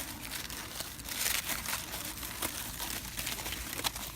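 Wood fire crackling in a campfire pit: a steady run of small irregular pops and snaps.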